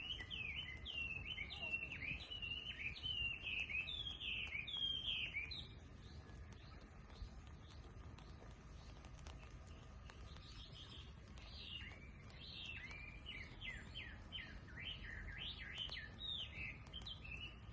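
A songbird singing quick runs of chirping notes that pause about six seconds in and resume about five seconds later, over a steady low background rumble.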